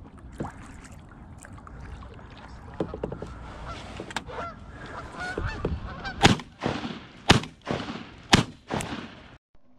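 A flock of geese honking, the calls growing louder as the birds flush, then three shotgun shots about a second apart fired into the flock.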